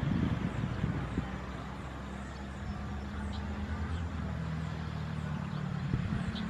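Airbus A320 jet engines at takeoff thrust during the takeoff roll: a steady, distant drone that slowly grows louder as the jet comes closer.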